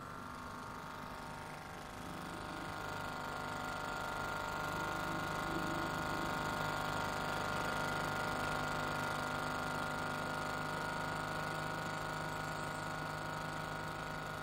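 Small vintage outboard motor running steadily at a constant throttle, pushing an inflatable boat along. It grows a little louder over the first few seconds.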